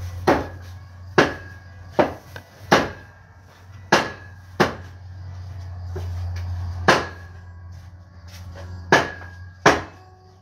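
A cleaver chopping through a whole roast pig, about nine sharp chops spaced unevenly, most about a second apart. A steady low hum runs underneath.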